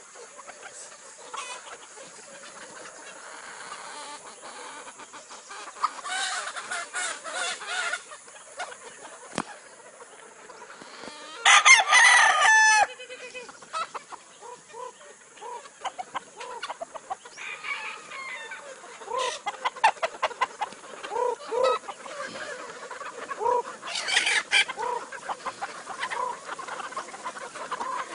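Chickens clucking and squawking in a coop, with a rooster crowing once about halfway through, the loudest sound.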